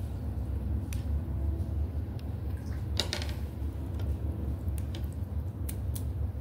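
Scattered small clicks and knocks from handling fishing gear over a steady low rumble; the sharpest knock comes about three seconds in.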